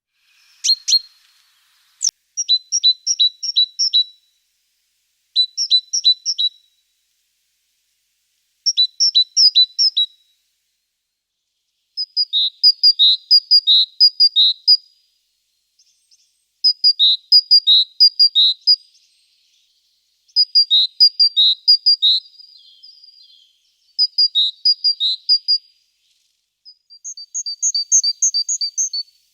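A small songbird singing a short phrase of quickly repeated paired high notes, about eight times over, with short pauses between phrases.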